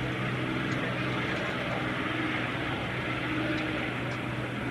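Single-engine piston warbird's engine running on takeoff and climb-out, heard from a distance as a steady drone under an even hiss.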